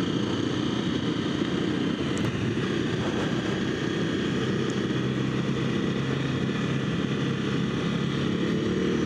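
Honda CRF250L single-cylinder dirt bike engine running at a steady pace while riding through sand.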